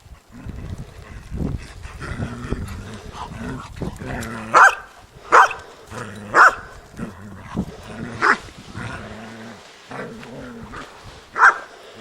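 A dog growling low and steadily, broken by five sharp barks, a cluster of four in the middle and one near the end.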